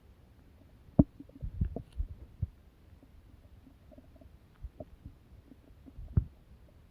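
Irregular low gurgling with short pops at uneven intervals; the loudest comes about a second in and another about six seconds in.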